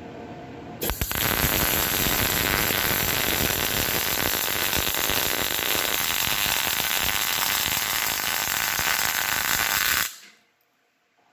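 MIG welding arc crackling steadily as a bead is run along the seam of a curved steel box section. The arc starts with a brief stutter about a second in and stops abruptly about ten seconds in.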